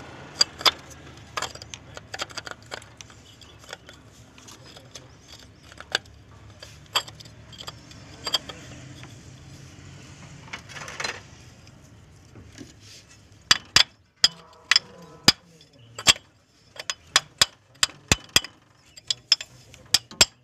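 Sharp metallic clicks and clinks of a water pump pulley being fitted by hand onto its mounting nuts. They are scattered over a low steady hum at first, then in the last several seconds come as a run of sharp clicks about two a second.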